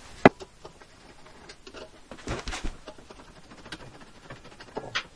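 Handling noise of hand tools and a wooden block: a sharp click just after the start, then scattered light taps, knocks and rustling as tools are set down and the valve body is handled.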